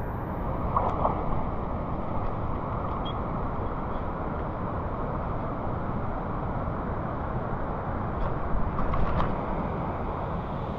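Steady rushing noise of a jungle river's flowing water, with brief splashy bursts about a second in and again near the end.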